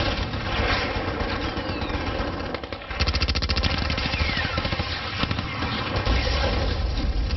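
War sound effect of a battle: rapid machine-gun fire over a constant low rumble, the shots coming fast and even from about three seconds in, with a couple of short falling whistles through the din.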